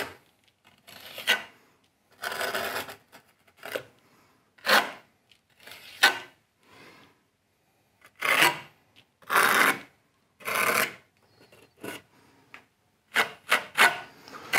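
Small steel trowel scraping and spreading a sandy facing compound onto the corner of textured brick slips, in a series of separate short scrapes with brief pauses between them.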